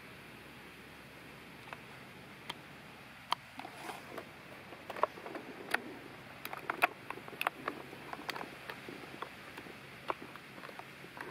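Irregular light clicks and small handling sounds of a cordless hedge trimmer being handled while its motor is not running, coming more often from about five seconds in.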